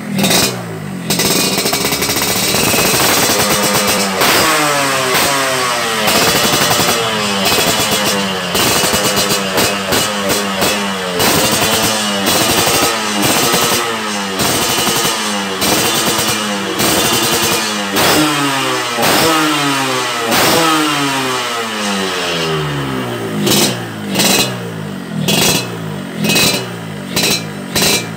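Yamaha RX-King two-stroke single-cylinder engine revved over and over through a chrome 'Lobster' aftermarket expansion-chamber exhaust, each rev rising and falling in pitch about once every second or so. Near the end come shorter, sharper blips with the engine dropping back between them. The exhaust note is crisp.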